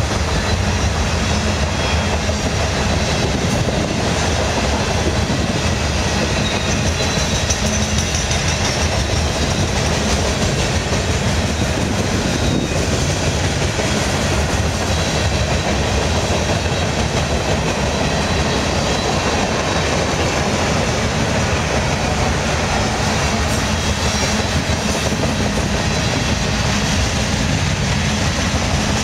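Freight cars of a mixed freight train rolling past close by: a steady, unbroken noise of steel wheels running on the rails.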